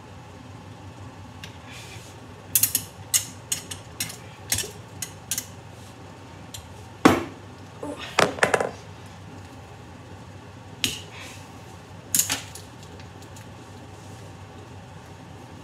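Plastic K'nex rods and connectors of a toy ceiling fan clicking and clattering as they are handled: a run of sharp clicks a few seconds in, the loudest knock about seven seconds in with a cluster just after, then two more clicks near the end.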